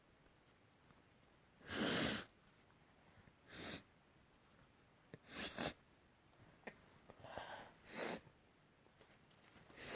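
A person sneezing again and again: five or six short, sharp bursts about every one and a half to two seconds, the first, about two seconds in, the loudest.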